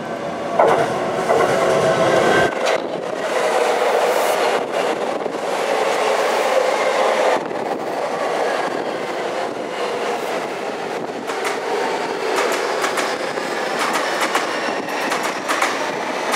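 Seibu 6000-series electric train pulling into the platform and slowing, its cars passing close by. The wheels click repeatedly over the rail joints under a dense rush of running noise, with whining tones from the drive and brakes. It gets loud about half a second in as the front arrives.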